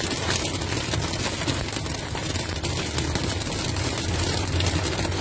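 Heavy storm rain pelting a car's windshield and roof, heard from inside the cabin as a dense, steady patter over the low hum of the car's engine.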